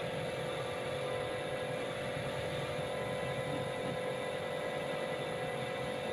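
Air compressor running steadily to feed a spray gun, a continuous motor hum with a strong steady tone over a hissing noise.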